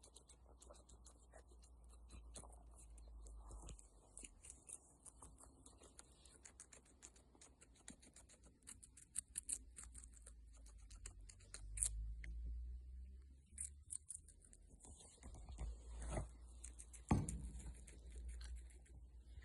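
Guinea pig chewing and crunching its food, a faint, irregular run of small crisp clicks, with bedding rustling.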